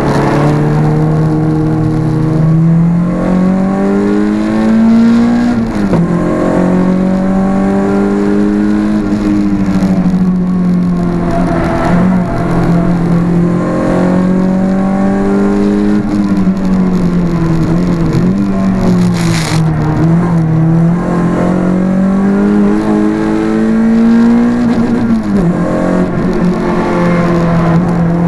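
Renault Clio 172's 2.0-litre four-cylinder engine at high revs on track, heard from inside the cabin. The pitch climbs under throttle and drops sharply at each upshift, most clearly about five seconds in and again near the end, with smaller dips where the revs fall between corners.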